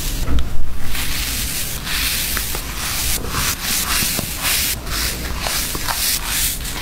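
Cotton candy being pressed against the lips and bitten close to an ASMR microphone: soft rustling and crunching in irregular bursts.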